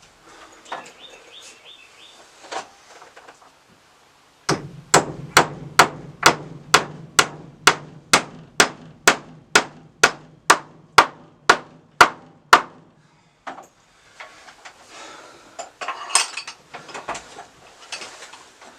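Hammer driving a nail into wood: after a few faint knocks, a steady run of about eighteen sharp blows, roughly two a second, starting about four seconds in and stopping after about eight seconds.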